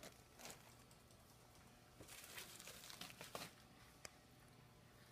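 Faint crinkling of a plastic parts bag being handled, with a small sharp click about four seconds in.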